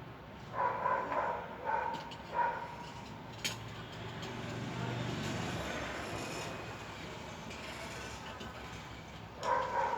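Metal clinks and scrapes of a socket wrench working the nuts on a washing machine motor's brake plate: a few short ringing knocks in the first few seconds and a sharp click, then softer handling and rubbing noise.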